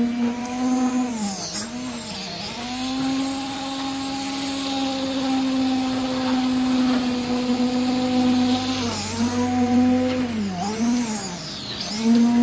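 Hand-held concrete poker vibrator running with a steady high hum. Its pitch sags and comes back up a few times, about a second and a half in and twice near the end, as the vibrating head is worked through the wet concrete.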